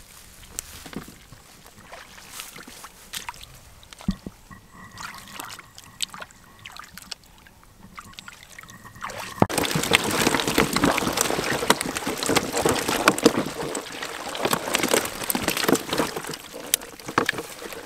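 Hands splashing in shallow muddy water while catching and handling fish: faint, scattered wet clicks at first, then, about halfway through, a sudden, louder, continuous run of splashing and sloshing that eases off near the end.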